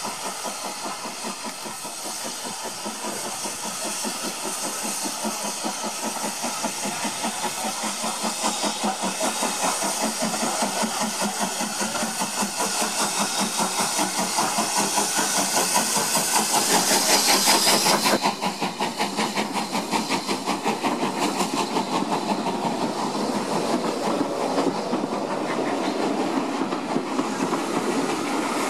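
Steam locomotive working a train: a rapid, even beat of exhaust chuffs over a hiss of escaping steam, growing louder as it comes closer. About two-thirds of the way in the high hiss cuts off suddenly while the chuffing goes on.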